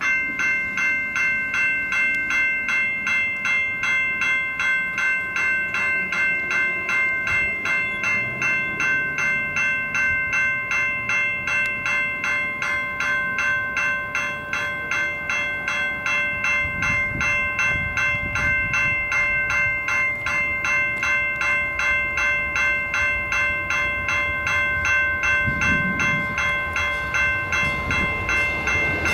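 Railroad grade-crossing warning bell ringing in rapid, evenly repeated strikes, starting suddenly, sounding the warning that a train is approaching the crossing.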